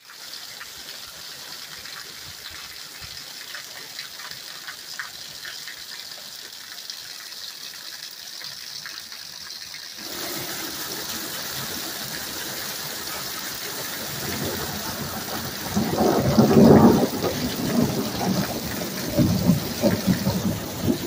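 Steady rain hissing. About halfway through it becomes louder and fuller, and over the last five seconds loud, low rumbling surges come and go over it.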